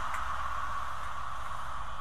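Coaches of an InterCity 125 high speed train rolling past as it pulls out of the station: a steady rumble and hiss of wheels on rail, slowly easing off.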